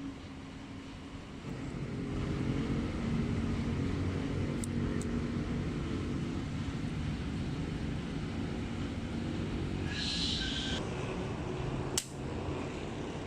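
A motor running steadily, getting louder about a second and a half in, with a short hiss and then a sharp click near the end.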